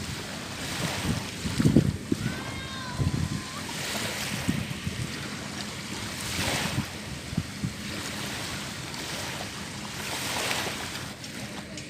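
Jet ski running on open water, its engine a steady low hum under rushing spray and wind buffeting the microphone, with surges of water noise about six and ten seconds in.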